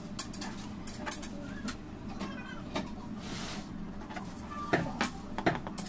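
A long knife sawing through layered red velvet sponge cake on a cardboard cake board: soft scraping, with scattered clicks and taps and a few louder knocks near the end.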